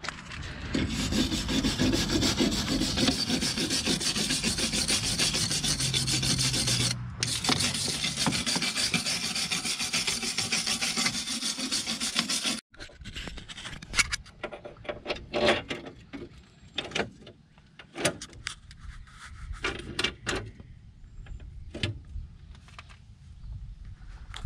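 Steel wire brush scrubbing the rusty hub bore of a steering knuckle in fast, continuous back-and-forth strokes for about twelve seconds. It stops abruptly about halfway through, and scattered short scrapes and clicks follow.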